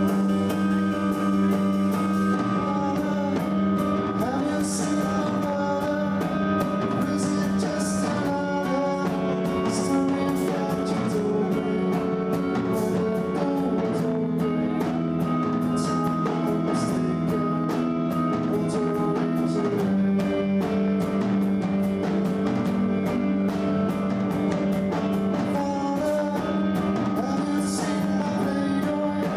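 Live rock band playing: electric guitar holding long sustained chords over a drum kit, with cymbal crashes ringing out several times.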